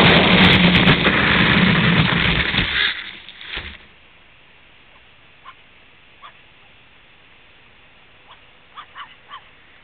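Loud rush of motor and wind noise from the small aircraft carrying the camera as it skims low over the ground. It dies away about three seconds in, with a knock as the aircraft comes down in tall grass. After that it is fairly quiet, with a few short bird chirps.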